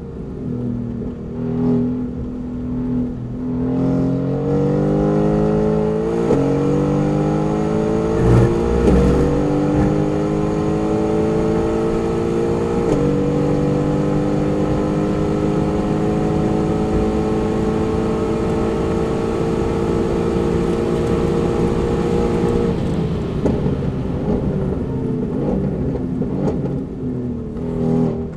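Mercedes-AMG GT R's 4.0-litre twin-turbo V8 heard from inside the cabin, accelerating hard through the gears: the engine note climbs, then steps down at quick upshifts about 6, 9 and 13 seconds in. A long pull in the last gear follows, and about 23 seconds in the revs fall away sharply as the car comes off the throttle for a corner.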